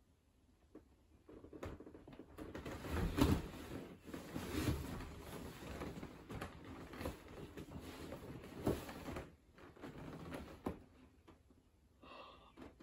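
Leather sofa cushions creaking and clothes rustling as a person stirs, sits up and shifts on the couch, with a few sharper creaks and knocks along the way. Near the end the person lets out a short groan.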